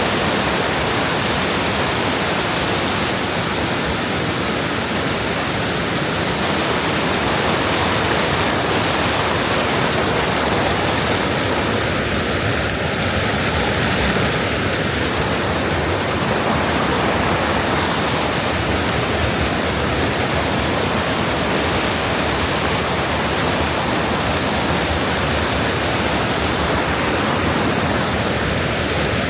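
Waterfall pouring steadily into a mountain gorge stream: an even, unbroken rush of water.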